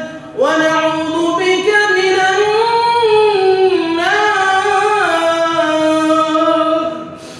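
A man's voice intoning an Arabic dua in one long, drawn-out melodic phrase. The pitch climbs to a high point about three seconds in, rises again around five seconds, then sinks and fades near the end.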